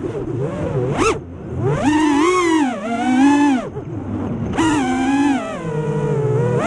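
FPV quadcopter's brushless motors whining, the pitch swooping up and down as the throttle is punched and eased. The pitch drops away sharply about a second in, then climbs again in several swells.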